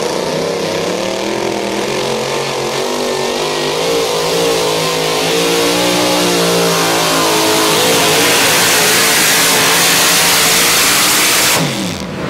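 Supercharged engine of a modified Dodge pickup running at full throttle under load as it pulls a sled. Its pitch wavers as the truck hops, over a hiss that builds as the tires spin in the dirt. Near the end it drops off suddenly and the engine winds down as the throttle is released.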